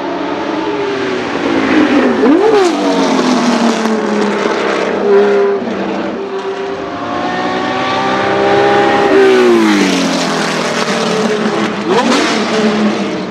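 Porsche 917K's 4.5-litre flat-12 racing engine at full volume. It falls in pitch with a quick throttle blip about two seconds in, then climbs steadily under acceleration. The pitch drops steeply about nine seconds in, and there is another sharp blip near the end.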